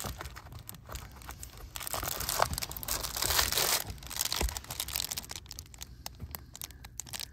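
Crinkling and rustling of a car's side window cover panel being handled and pulled aside, busiest a couple of seconds in.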